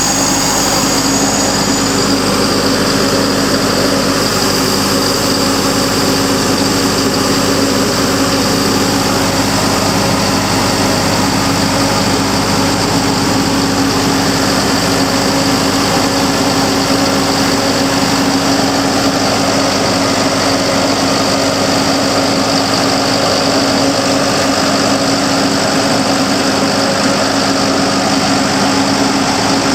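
Atlas Copco XAS400 towable air compressor's diesel engine running steadily at an even speed, with a constant hum and no change in pitch.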